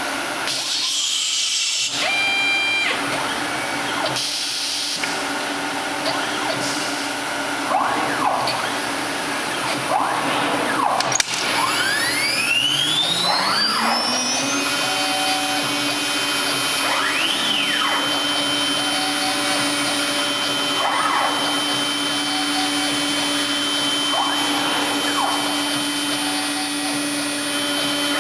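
Multicam MG Series CNC router running, its axis motors whining up and down in pitch every few seconds as the gantry and head move. Near the start come two short bursts of hiss. About eleven seconds in there is a click, and the spindle spins up with a rising whine, then runs at a steady high pitch over a continuous rush of air.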